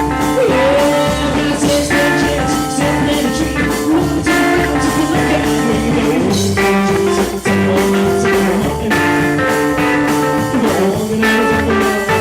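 A rockabilly band playing live: a guitar carries the lead with sliding, bent notes over bass and a steady drum beat.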